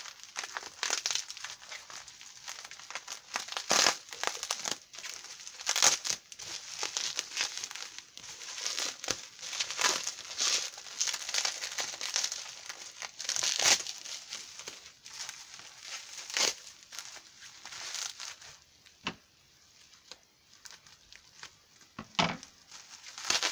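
Plastic bubble wrap crinkling and crackling in irregular bursts as it is pulled and unwrapped by hand from a packed item; it quiets for a few seconds near the end, then crackles again.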